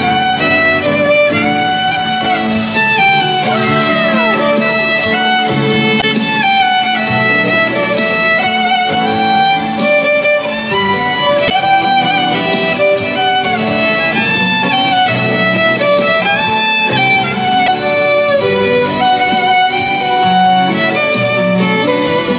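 Violin playing the melody of a sad Indonesian pop song as an instrumental passage without singing, with a few sliding notes that fall in pitch about three to four seconds in.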